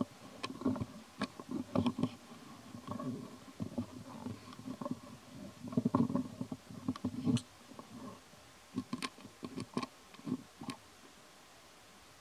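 Young macaque chewing lotus seeds: irregular crunching and small sharp clicks in uneven bouts, with short pauses between them.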